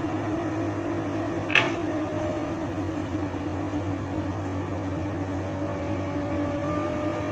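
Komatsu PC200 excavator's diesel engine running with a steady drone, with one sharp clank and a brief ring about a second and a half in.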